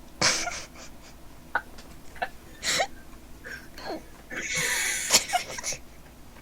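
Breathless, wheezing laughter mixed with hiccups: a string of short, sudden gasps and squeaks, with a longer breathy laugh about four and a half seconds in.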